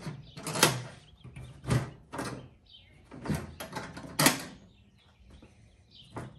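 Old Craftsman toolbox being unlatched and opened: about five short clunks and scrapes from its latches and lid in the first four seconds or so.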